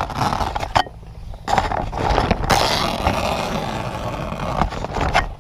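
Crackling, scraping and rustling of a heavy fabric canopy cover being worked by hand, with irregular sharp clicks and a short lull about a second in.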